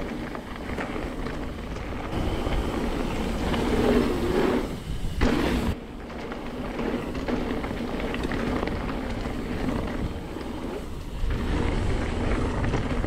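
Mountain bike rolling down a dirt trail: tyre noise over dirt and small rocks, mixed with wind rushing over the action camera's microphone, growing louder around four to five seconds in.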